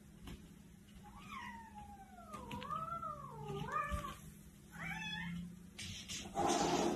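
A cat yowling: one long drawn-out call that wavers up and down in pitch for about three seconds, then a shorter rising call about a second later. Near the end comes a short, loud breathy burst.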